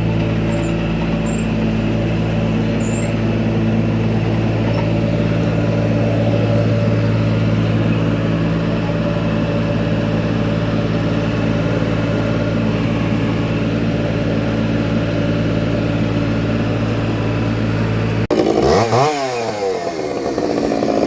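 A motor on the tree-removal crew's equipment running steadily at one pitch; near the end, after an abrupt break, an engine revs with its pitch sweeping up and down.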